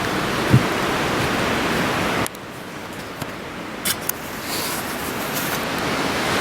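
Strong wind blowing, a steady rushing noise that drops off suddenly a little over two seconds in and builds back up again. A brief low thump about half a second in.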